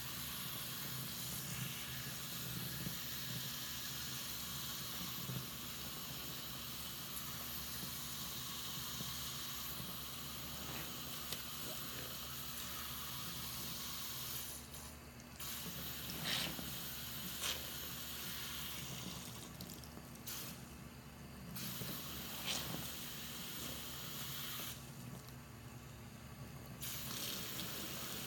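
Tap water running into a sink full of soapy water while a soaked kitchen sponge is squeezed and dunked in it. A few short, sharper squishes come in the second half.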